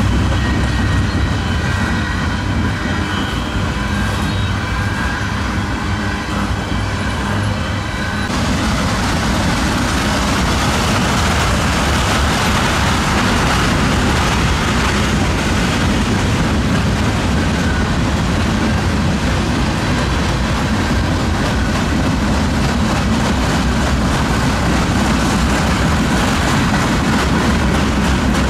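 Freight train of loaded flatcars rolling past at close range: a steady, loud rumble of steel wheels on rail. The sound changes abruptly about eight seconds in.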